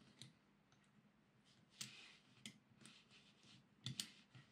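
Faint, scattered clicks and taps of small parts being handled and fitted on a Hornby Dublo N2 model locomotive chassis, with the loudest pair of clicks about four seconds in.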